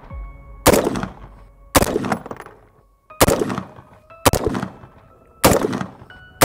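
AR-15 in 5.56 firing single aimed shots, five about a second apart and a sixth right at the end, each crack followed by a short echo.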